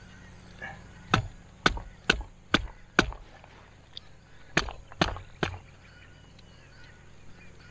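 Eight sharp knocks of a hand tool striking at a water pipe joint, five about half a second apart and then three more after a short pause.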